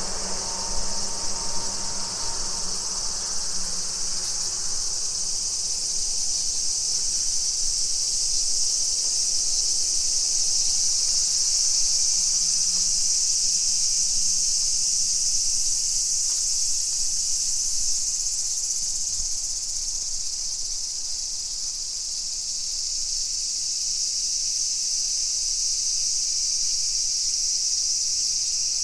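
Loud, steady, high-pitched insect chorus, a continuous shrill hiss without pauses. Fainter low street noise fades out in the first few seconds.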